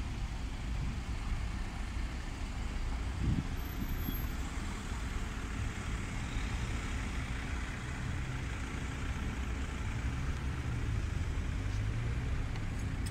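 City street traffic: a steady low rumble of road vehicles running and passing.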